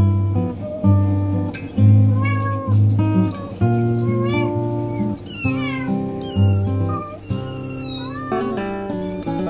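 Background music with plucked guitar and a steady bass line, with several high, short kitten meows over it.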